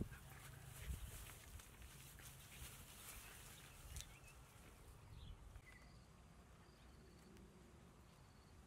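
Faint rustling and scuffling of two puppies play-fighting in dry grass and straw, with a few small clicks in the first few seconds. After that it quietens, with a few faint high chirps.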